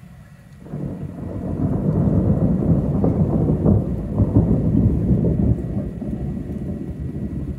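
Thunder: a deep rumble that breaks in suddenly about half a second in, swells over the next few seconds and slowly dies away.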